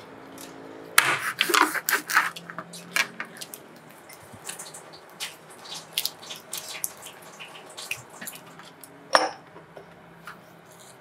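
Raw giant river prawns being handled and trimmed with a knife: a dense run of crackling and clicking from shell, blade, plate and cutting board, thinning to scattered clicks, with one sharp click about nine seconds in.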